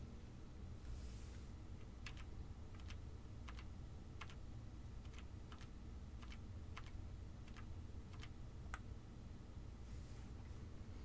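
Sparse clicks from a computer keyboard and mouse, about a dozen of them at irregular intervals, over a low steady hum.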